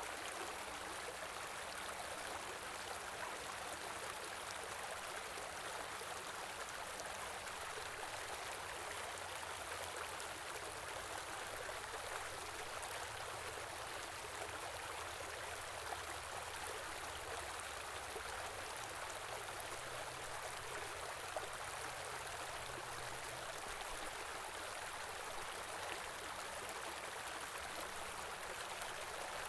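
Stream flowing steadily, an even rush of running water that does not change.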